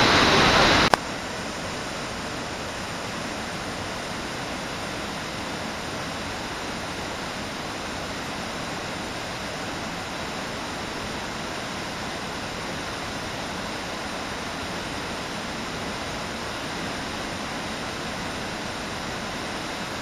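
Nunobiki Falls pouring into its plunge pool, loud and close; about a second in it cuts abruptly to a quieter, steady rush of falling water.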